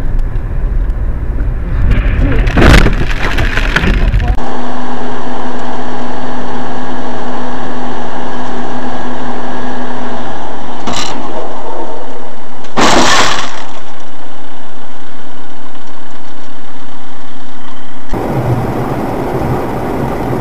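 Dashcam recordings of cars on the road with crash impacts. Road and engine noise carries a sharp bang a few seconds in. Then comes a loud, maxed-out recording with a steady hum, a short bang and, about two seconds later, a bigger crash.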